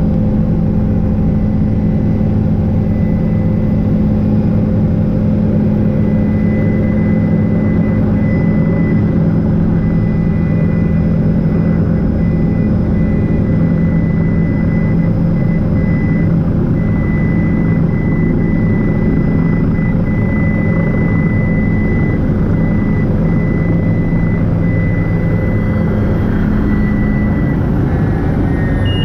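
Helicopter engine and rotor running steadily as it sets down and sits on the helipad: a loud, even drone with a thin, steady high whine over it. A low hum in the drone drops out near the end.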